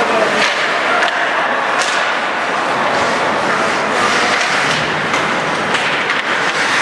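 Ice hockey game in play: a steady wash of skates on the ice and rink noise, with several sharp knocks of sticks, puck or players against the boards.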